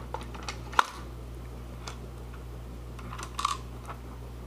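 Scattered clicks and light knocks, with one sharp click about a second in, as the acrylic thread carriage of a homemade fishing rod wrapper is handled and slid along its metal track, over a steady low hum.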